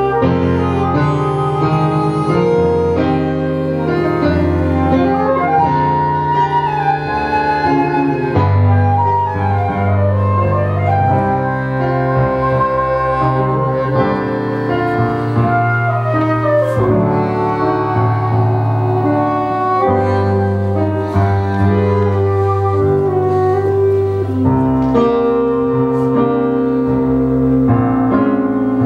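Instrumental tango music: a piano accompaniment under a sustained melody line that slides between some of its notes.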